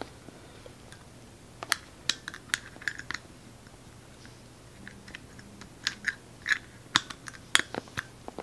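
Scattered light clicks and taps of an opened plastic car key fob being handled with fingernails and a metal pick while a new coin-cell battery is fitted. The clicks come irregularly in small clusters, with quiet gaps between.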